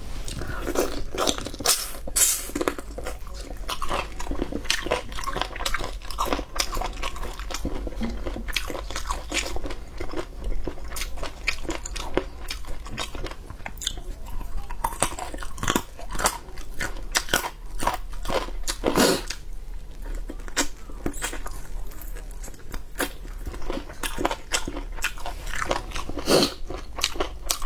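Close-up chewing and gnawing of braised chicken feet: irregular crunching bites and chewing with many sharp clicks.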